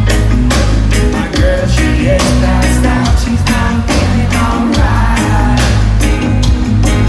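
A reggae band playing live and loud: deep steady bass, electric guitar, keyboards and drums keeping an even beat.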